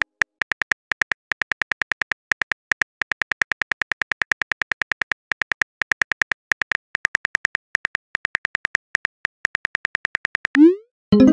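Phone keyboard key-click sound effects in a rapid, even run of about five taps a second as a chat message is typed. Near the end comes a short rising swoosh as the message is sent.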